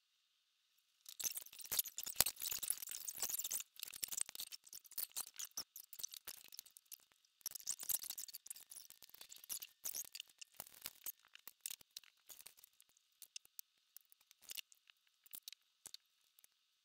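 Rustling and clicking handling noise, dense and loudest for a couple of seconds after about a second in, then coming in scattered bursts that thin out toward the end.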